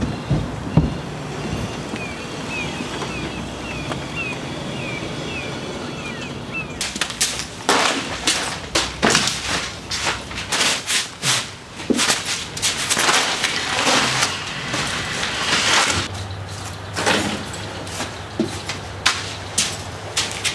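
A car engine running steadily as the car creeps forward into the shed, with a bird chirping repeatedly over it. About seven seconds in this gives way to a run of knocks, thuds and scrapes as wooden sawhorses and fiberglass body panels are moved and set down, with a steady low hum joining near the end.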